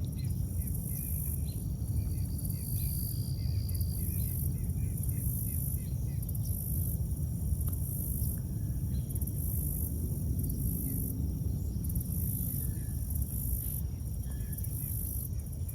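Outdoor insect chorus: insects chirping in an evenly pulsing high trill over a steady low rumble, with a run of faint short chirps in the first few seconds.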